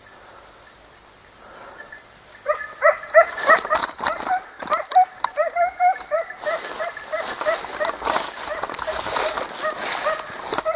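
Hunting dog giving tongue in short, repeated yelps, a few a second, starting about two and a half seconds in: a hound working the trail of a hare. From about the middle, a rustling hiss of dry brush runs under the yelping.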